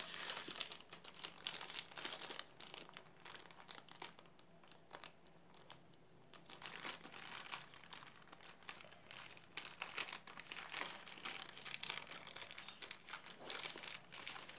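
Clear plastic bag and paper wrapping crinkling and rustling as they are handled and pulled apart, in irregular bursts with a quieter spell midway.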